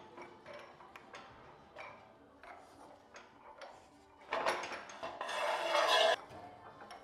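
Sheet metal being handled in a JET combination shear, brake and roll machine: light clinks and knocks of the metal against the machine's bed and clamp, then, about four and a half seconds in, a short rush and a louder one lasting about a second as the bent sheet slides against the machine.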